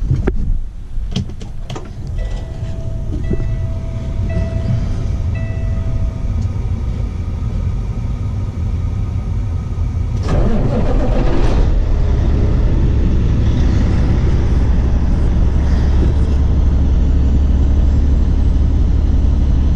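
Cummins diesel engine of a semi truck running steadily after a fuel pump replacement, heard from inside the cab. A few knocks come in the first two seconds, a dashboard chime beeps about four times soon after, and the engine grows louder and deeper about halfway through.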